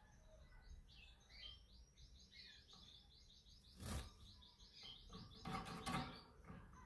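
Canary singing faintly: a few varied chirps, then a long, fast trill of evenly repeated notes. A sharp knock comes about four seconds in, and a short burst of noise near the end.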